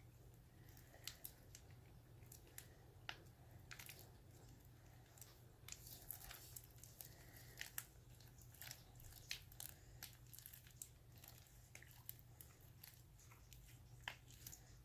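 Faint sticky crackling and squishing of slime being kneaded and pulled by hand, irregular small clicks as it comes away from the fingers while it firms up from the activator.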